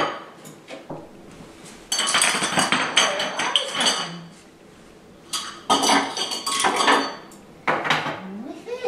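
Small hard objects clinking and rattling as they are handled, with a sharp click at the very start. The clatter comes in three spells: about two seconds in, again after five and a half seconds, and briefly near the end, each with a metallic or glassy ring.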